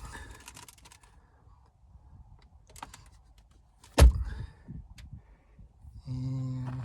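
Light clicking and handling sounds, with one loud sharp thunk about four seconds in, then a steady low hum near the end.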